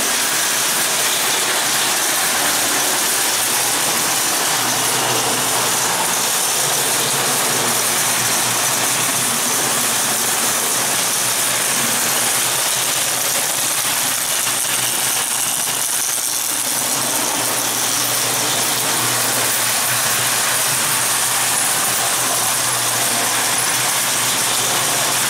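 Prewar Lionel toy trains running on three-rail tinplate track: a steady rattling run of wheels and electric motors, with a constant low hum.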